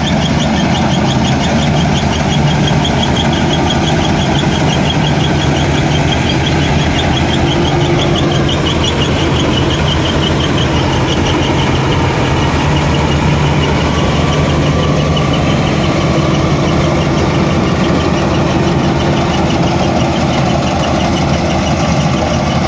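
Tractor engine running steadily, with a fast high-pitched ticking of the crop-cutting machinery at about four beats a second, clearest over the first half.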